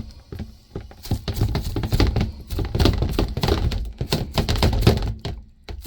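Busy clatter of knocks and taps as small dye bottles are handled and set down on a tabletop, thickest in the middle of the stretch.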